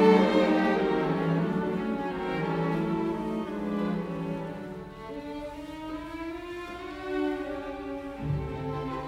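Background music: a string melody on sustained, smoothly gliding notes, with a low bass note coming in near the end.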